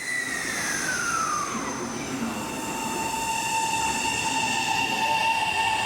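Kintetsu electric train moving through the station: a high whine that falls in pitch over the first two seconds, then holds as a steady high squeal over the rumble of the train, growing slightly louder.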